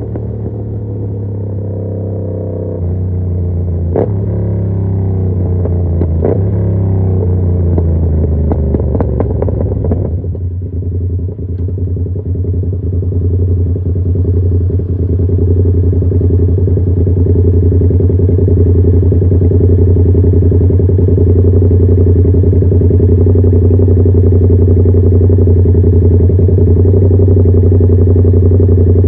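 2021 Yamaha MT-07's parallel-twin engine, breathing through an SC Project CR-T carbon aftermarket exhaust. It runs at low, varying revs with a few sharp clicks, then settles to a steady idle about ten seconds in.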